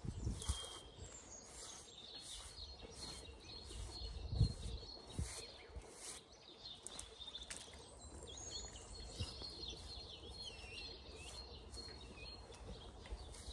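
Small birds chirping, with the soft, even strokes of a hand brush on a horse's face and a low thump about four seconds in.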